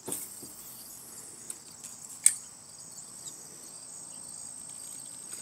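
Insects chirring in a steady high-pitched drone, with one sharp click a little over two seconds in.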